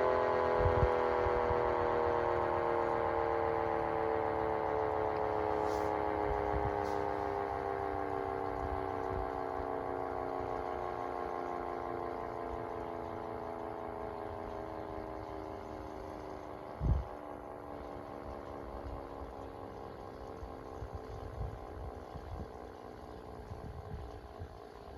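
Red Arrow Model 30 mechanical siren winding down, its pitch falling slowly and steadily as the sound fades: the rotor coasting to a stop. A single thump comes about two-thirds of the way through.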